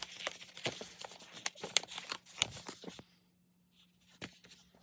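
Foam being cut by hand: a quick run of short snips and crackles for about three seconds, then it stops, with only a couple of faint ticks after.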